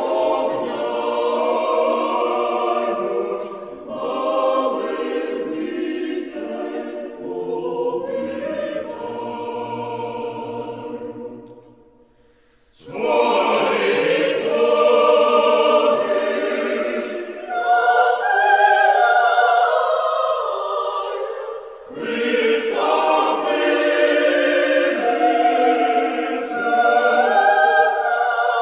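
Choir singing slow, held chords as background music; the singing fades out about twelve seconds in and starts again, louder, a second later.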